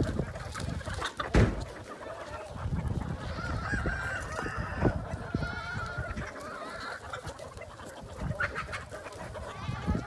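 A large flock of free-range chickens, hens and roosters, clucking and squawking together, with a long rooster call around the middle. A sharp knock sounds about a second and a half in.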